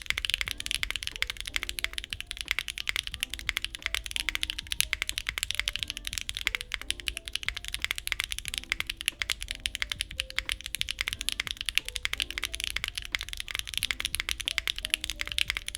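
Rapid, continuous typing on a mechanical keyboard fitted with Bsun Sea Salt Lemon tactile switches on an unfoamed carbon-fibre plate with GMK keycaps: crisp, high-pitched, clacky keystrokes.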